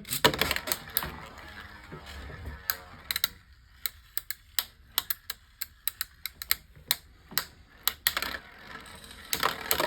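Beyblade Micros spinning tops battling in a small plastic stadium: a faint whir at first, then a rapid, irregular run of sharp plastic clicks as the tops knock into each other and the stadium walls.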